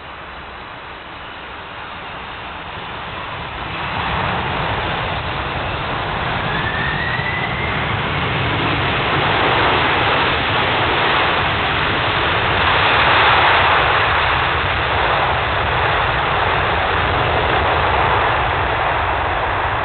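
A Boeing 747-400's four jet engines in reverse thrust just after touchdown. A steady rushing noise grows about four seconds in and stays loud as the jet slows on the runway, with a short rising whine near seven seconds.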